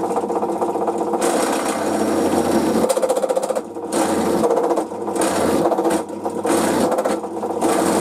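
Bench drill press running, its bit cutting into a metal fence-post bracket to enlarge a pre-drilled hole. A steady motor hum carries under a harsher cutting noise that swells and eases about once a second as the feed is pressed and let off.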